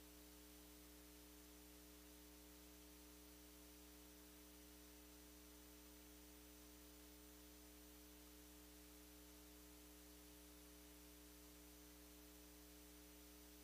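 Near silence: a faint steady electrical hum with light hiss from the sound system.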